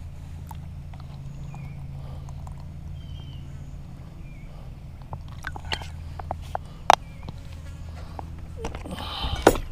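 Cooking gear being handled: scattered light clicks and knocks, a sharp click about seven seconds in and a short cluster of louder knocks near the end, over a steady low hum.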